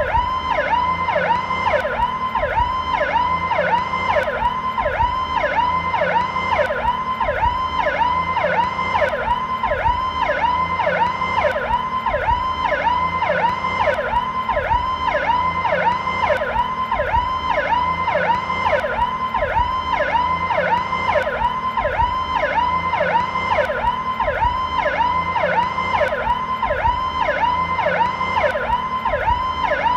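American police car's electronic Powercall siren in its slow mode: a loud wail sweeping up and down between a lower and a higher pitch, repeating about one and a half to two times a second, with a steady low rumble underneath.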